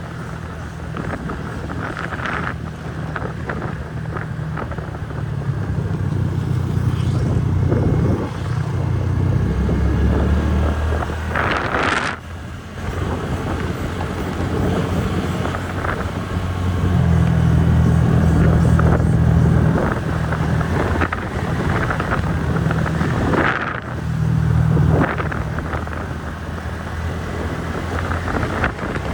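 TVS Ntorq 125 scooter's single-cylinder engine running under way on a hill road, its low note swelling and easing with the throttle, with wind noise on the microphone.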